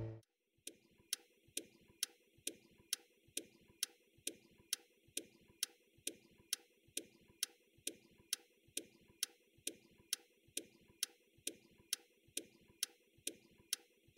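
Steady, even ticking, about two ticks a second, from a faint ticking sound effect.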